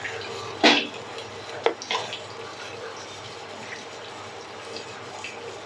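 Wooden spatula stirring wet shredded coconut in coconut milk in an aluminium pot, a wet scraping, with a sharp knock against the pot under a second in and lighter knocks near two seconds.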